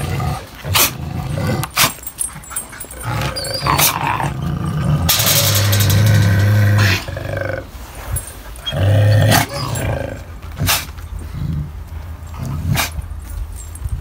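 Kangal dog and wolf growling and snarling at each other in a confrontation, in low, rough spells of a second or two, broken by several sharp knocks.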